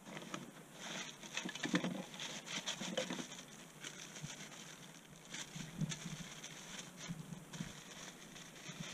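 Irregular rustling with small clicks and taps of hands handling material at a ground trap set, in two busy spells with a lull between.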